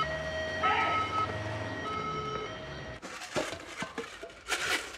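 Two-tone emergency-vehicle siren alternating between a high and a low note about every half second over a low engine rumble, cutting off about three seconds in. It is followed by a few light clinks and knocks of crockery.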